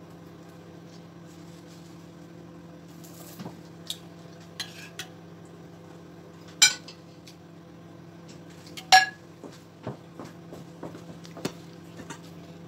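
Knife and fork clinking and scraping on a plate while cutting roast pork shank. Scattered light clicks, with two sharper clinks about seven and nine seconds in, the second ringing briefly, over a steady low hum.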